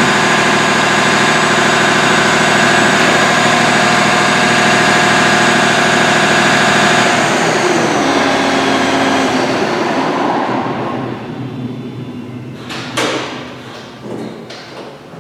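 An engine running steadily, then shut off about seven seconds in, its pitch sliding down as it winds down and fades out over the next few seconds. Two sharp knocks follow near the end.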